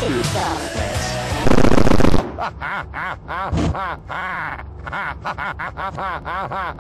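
Chopped-up remix audio. A very loud, distorted buzzing burst comes about one and a half seconds in. After it, a short pitched snippet is cut and repeated rapidly in a stutter, several times a second, with its pitch bending on each repeat.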